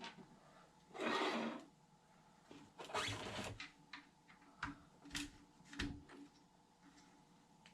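Hands handling RC truck suspension parts and tools during assembly: two short scraping rustles, then three sharp clicks about half a second apart.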